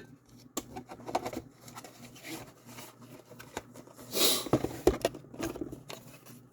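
Rustling and clicking of packaging and plastic VHS cases being handled, with a louder rustle about four seconds in.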